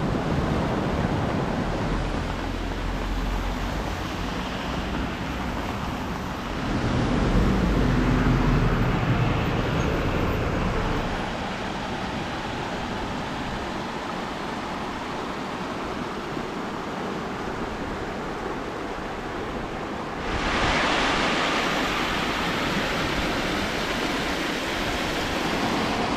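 Surf washing onto the shore with wind buffeting the microphone in low gusts. About twenty seconds in, a louder, brighter hiss of rushing water comes in.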